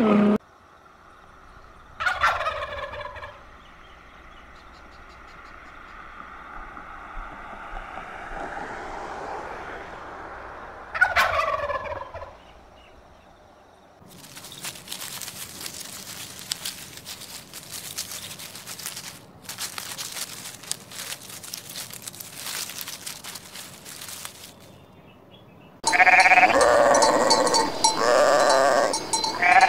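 Dromedary camels calling twice, each a single descending moan about a second long. This is followed by a long stretch of fast faint clicking. Near the end, sheep start bleating loudly and repeatedly.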